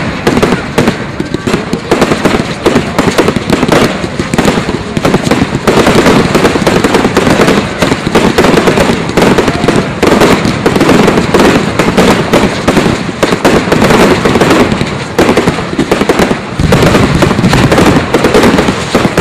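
Firework display at full intensity: a dense, unbroken barrage of loud bangs and crackling from many shells bursting in quick succession, several a second.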